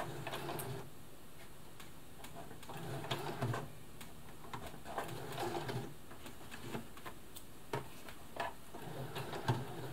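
Brother FS60X computerised sewing machine stitching slowly through a thick multi-layer denim jeans hem, in short stop-start runs of a few stitches separated by pauses.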